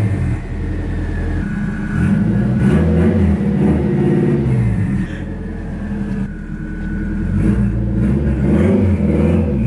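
Turbocharged Honda S2000's four-cylinder engine running and revving, its pitch rising and falling several times.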